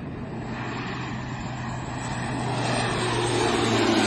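Propeller aircraft engine running with a steady low tone, growing louder as the plane approaches in the second half.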